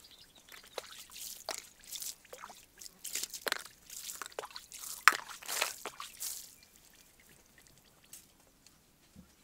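Water poured from small pots over leafy greens in a woven bamboo basket, splashing and dripping through the weave as the greens are rinsed. The splashes stop about two-thirds of the way through.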